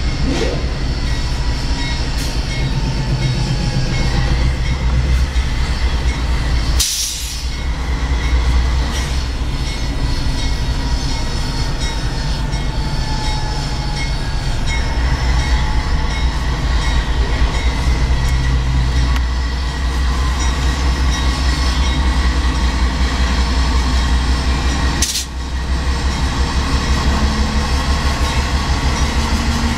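GE Dash 9-44CW diesel locomotive running with a steady low throb from its V16 engine as it rolls slowly along the track. The rumble is broken twice by a brief click.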